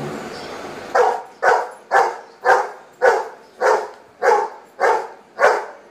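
Dog barking on command, nine short barks at an even pace of about two a second starting about a second in: it is barking out the number ten it was asked for.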